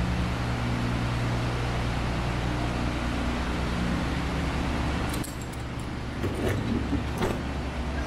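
Diesel engine idling steadily. About five seconds in, the broad running noise drops away and a few sharp metallic clicks and rattles follow.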